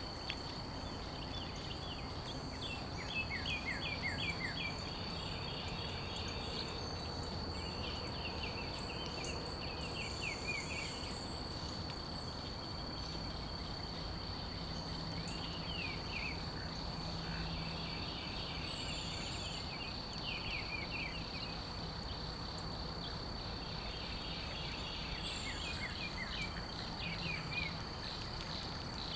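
Insects making a steady, high-pitched drone, with repeated bursts of rapid chirping every few seconds over a low, even background rumble.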